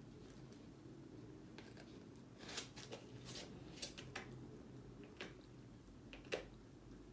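American Staffordshire terrier puppy gnawing on a chew held between its paws: a scatter of short, sharp crunching clicks, a few in the middle and one of the loudest near the end, over a low steady room hum.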